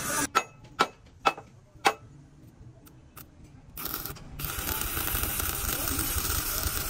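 Four sharp knocks about half a second apart, then from about four seconds in the steady crackling hiss of a stick (arc) welder welding a steel crossmember into a truck chassis frame.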